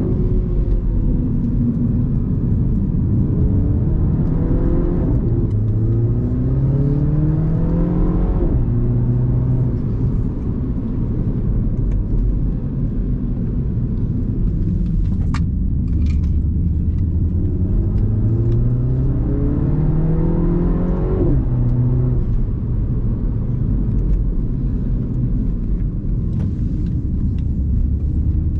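Mini Cooper F56's turbocharged four-cylinder engine and exhaust, pulling hard with pitch climbing through the revs. The pitch drops sharply on upshifts about eight seconds in and again about twenty-one seconds in, and the engine runs steadier near the end. A single sharp click is heard about fifteen seconds in.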